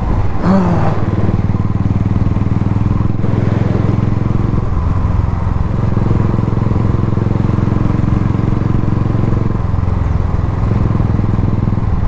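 Royal Enfield Thunderbird 350X's single-cylinder engine running steadily while the motorcycle cruises, heard from the rider's seat.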